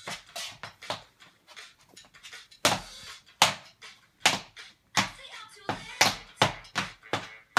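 Bare feet stomping and tapping on a wooden floor as a child dances: a run of sharp thumps that grow stronger and come about two a second from a little over two and a half seconds in.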